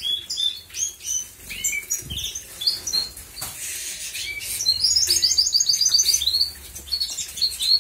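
Canaries chirping and twittering in short, quick notes, with a fast run of repeated notes about five seconds in, over the flapping and splashing of a bird bathing in a shallow water dish.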